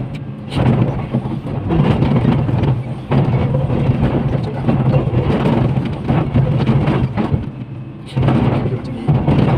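Komatsu PC500LC excavator's diesel engine working under load as the bucket teeth dig and scrape into a rock face, with a steady low engine hum under rumbling, grinding noise of breaking rock. The noise eases briefly about three seconds in and again near the end.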